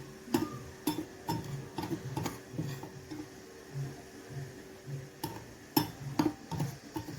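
A dozen or so sharp, irregular taps and clicks of kitchen utensils against a bowl while flour is being added.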